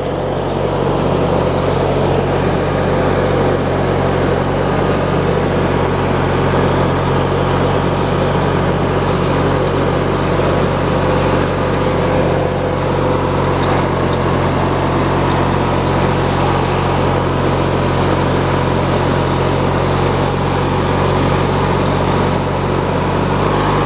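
Hydrostatic riding lawn mower's engine running steadily as the mower drives along, the hydrostatic transmission loud because it is still cold. No squeal from the new motion drive belt, which is not slipping.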